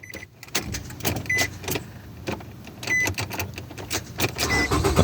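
Ignition key being worked in the switch of a 2013 Nissan Rogue that won't start: a run of irregular clicks with three short beeps, then the starter begins to crank right at the end as the key is pushed further in. The fault lies in a worn ignition switch rather than the starter.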